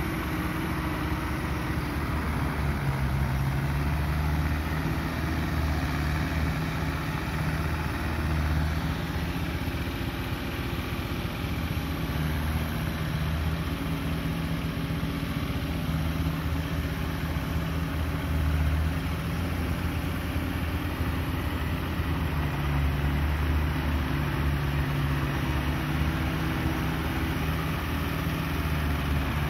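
Farm tractor's diesel engine running steadily under load, pulling a rotary tiller through dry paddy soil, its pitch shifting slightly now and then.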